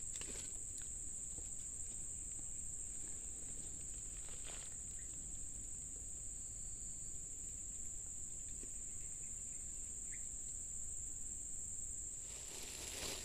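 A steady, high-pitched insect call, one unbroken tone, with a couple of faint clicks.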